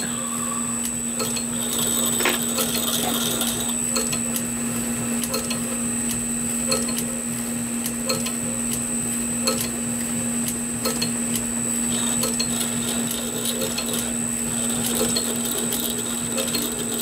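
Belt-driven vintage lathe running steadily with a low hum and a high whine, while a D-bit bores a hard bronze bar. Light clicks are scattered through the sound.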